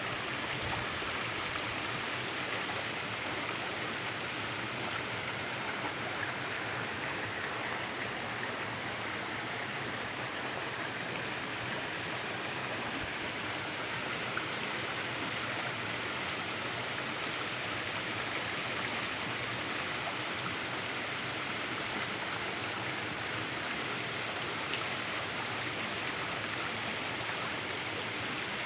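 Running water in a stream: a steady, even rush.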